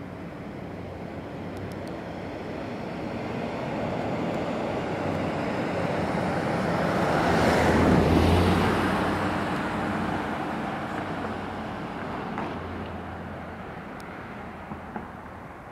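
A car driving past on the road, its engine and tyre noise swelling to a peak about halfway through and then fading away.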